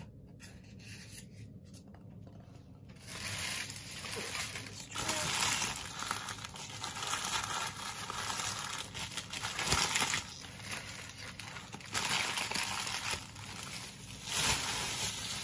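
Rustling and crinkling of handled trading cards and card-pack wrappers, starting about three seconds in and going on unevenly.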